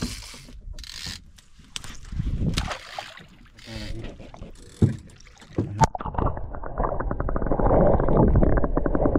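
A couple of sharp knocks about five and six seconds in, then an outboard motor heard muffled through water: a fast, even pulsing that grows steadily louder.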